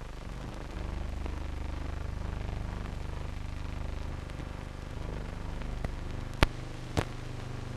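Steady low hum and hiss of an old newsreel's film soundtrack between narration, with two sharp pops about half a second apart near the end.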